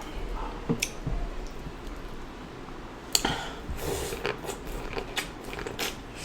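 Close-miked wet chewing, lip smacks and sticky mouth noises from eating sauce-covered seafood boil food. Scattered sharp clicks run through it, with a crisp bite or crack about three seconds in and a run of them after.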